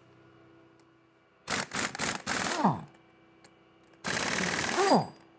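Cordless impact wrench hammering out the bolts of the retainer plate on an axle hub. There are two bursts of rapid rattling about a second long each, the first choppy and the second continuous, and each ends with the motor winding down.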